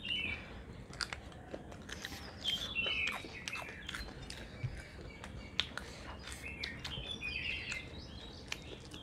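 Close eating sounds: chewing and fingers mixing rice on plates, heard as soft irregular clicks. Birds chirp in short flurries three times over it.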